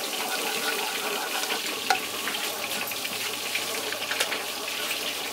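Food frying in hot oil: a steady sizzle with many small crackles.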